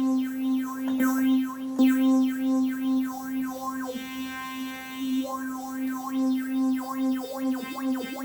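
A held synthesizer note played through a Boss MD-200 modulation pedal set to phaser, with the effect cranked up to a heavy, swirling sweep. The sweeps speed up near the end.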